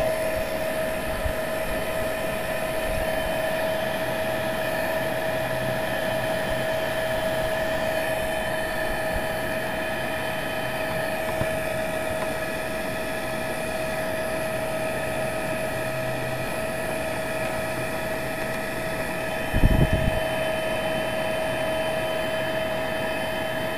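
Electric heat gun running steadily: a constant blowing with a steady whine, heating the battery box lid to soften it. A brief thump about twenty seconds in.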